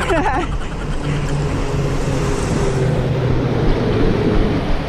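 Wind and movement noise rumbling on the microphone of a camera carried while running. A motor vehicle's steady engine hum runs under it from about a second in for a couple of seconds.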